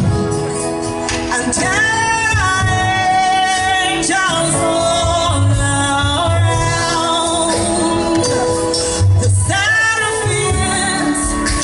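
Gospel worship song: a lead voice sings long held notes with vibrato over an instrumental backing with a steady bass beat.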